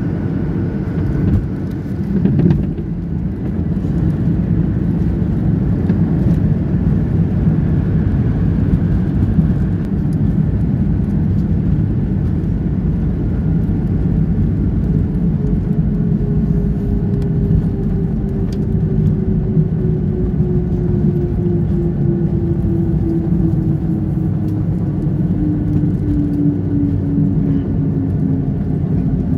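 Cabin noise of an ATR turboprop airliner rolling on the runway after landing: a steady low engine and propeller rumble, with two brief bumps about two seconds in. Over the second half a whining tone slides slowly down in pitch.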